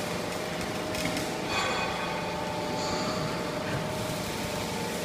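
Hydraulic metal scrap baling press running: a steady machine hum with a constant tone over a noisy background, and a couple of light knocks about a second in.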